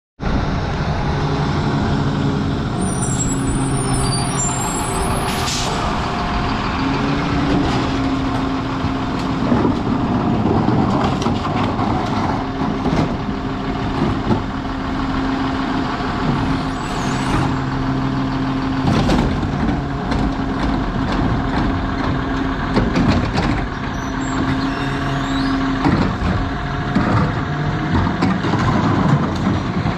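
Lodal EVO garbage truck running, with a low hum from the packer hydraulics that cuts in and out, and clanks and bangs as wheeled carts are tipped into the side hopper. There is a squeal and a hiss of air a few seconds in.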